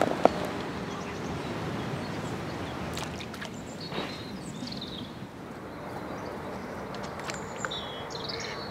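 Outdoor ambience: a steady hiss, with short high bird calls about halfway through and again near the end, and a few light taps.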